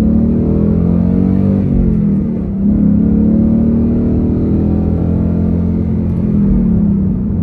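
A 2021 Ford Mustang GT's 5.0-litre V8 pulling under load while driving. The engine note climbs and falls twice, with a short dip in loudness about two and a half seconds in.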